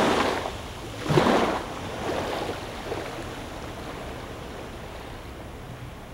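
Small waves lapping onto a pebbly sand beach: one wave washes up the shore about a second in, then the water settles to a soft hiss that slowly fades.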